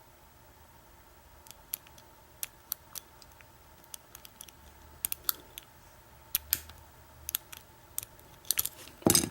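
Irregular small metallic clicks of a lock pick and tension wrench working the pin stack of an American 1100 padlock held in a deep false set. The clicks start after a quiet second or so, come more often as it goes on, and end in a loud cluster of clicks near the end.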